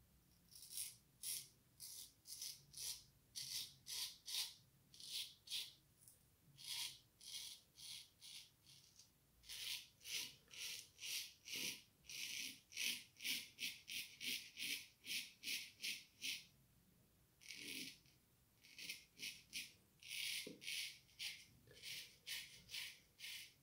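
Antoine Touzet frameback straight razor with a Swedish steel blade, made around 1900, scraping through lathered stubble: a quick series of short, crisp rasping strokes, a few per second, with a couple of brief pauses.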